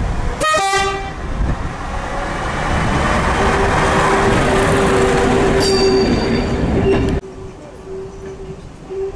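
AC Cars railbus sounding a short horn blast, then running past with its engine and wheel noise growing loud and steady under a held drone. The noise cuts off suddenly about seven seconds in.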